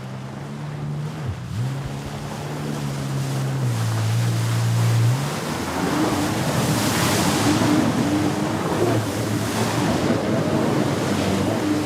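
Jet ski engine running on the water, its hum shifting in pitch as the throttle changes; from about five seconds in, a louder rush of water spray and wind covers it.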